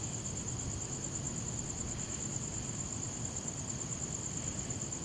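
Night insects trilling in one steady, high, fast-pulsing chorus, over a low rumble of background noise.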